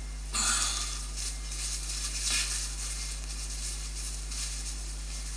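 Paper towel rustling and crinkling in the hands as a damp sponge fan filter is blotted dry in it, in several bursts, the loudest about half a second in, over a steady low electrical hum.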